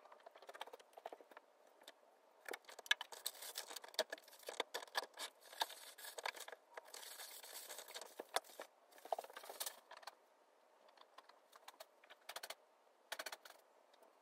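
Faint, irregular clicks and ticks coming in quick clusters, densest through the middle and sparser near the end.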